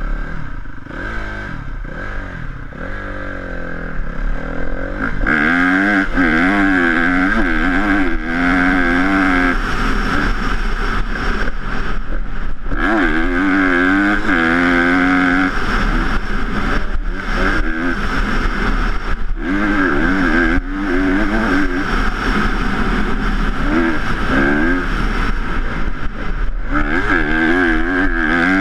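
Honda CRF250R dirt bike's single-cylinder four-stroke engine, heard from the bike itself: running gently as it pulls away, then revving hard from about five seconds in, the pitch rising and falling over and over with short breaks in the revs every few seconds as it rides along a dirt track.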